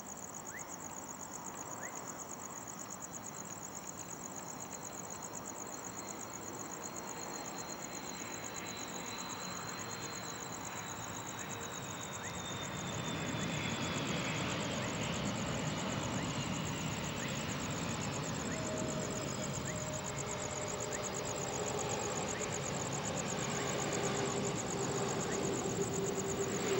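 Airbus A330-200 jetliner with GE CF6 engines landing and rolling out along the runway: a whine that slowly falls in pitch in the first half, then engine rumble that swells from about halfway and grows steadily louder with a held engine tone as the plane passes near the end. Crickets chirp steadily throughout.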